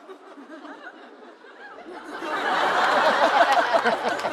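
Studio audience laughing: scattered chuckles at first, then the laughter swells loudly about two seconds in.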